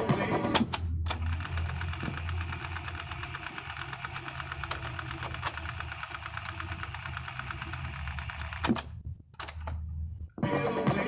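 Aiwa CSD-ES340 boombox: a button clicks and the music cuts off, then a steady mechanical whirring rattle runs for about seven seconds. More button clicks with short gaps follow before music starts playing again near the end.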